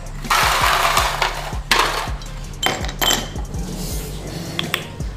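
Ice cubes clattering and clinking into a drinking glass in a few bursts over the first three seconds, the longest near the start. Background music with a steady low beat runs underneath.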